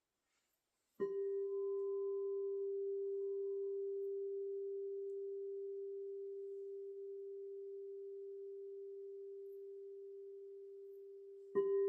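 A sound-healing instrument, tuned for the throat chakra, is struck about a second in and rings on one steady pitch, fading slowly for about ten seconds. It is struck again near the end.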